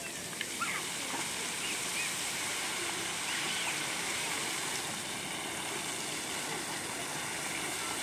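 Rows of lit fountain jets spraying and splashing down onto a lake: a steady rushing hiss of water.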